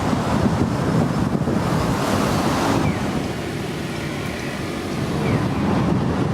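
Strong typhoon wind gusting and buffeting the microphone. It eases a little about three seconds in and picks up again about five seconds in.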